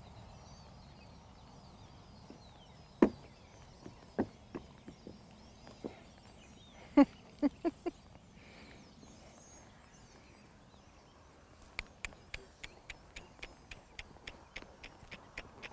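Hooves of an American Mammoth Jack donkey under saddle: a handful of scattered knocks as it steps across a low wooden platform, then from about twelve seconds in a steady run of hoofbeats, about three a second, as it moves off at a quicker gait.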